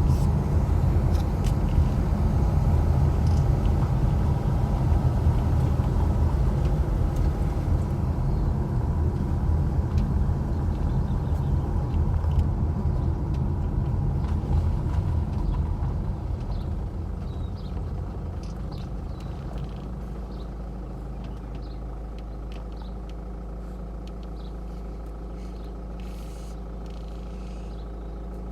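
A steady engine rumble, easing down about sixteen to twenty seconds in to a quieter, even hum.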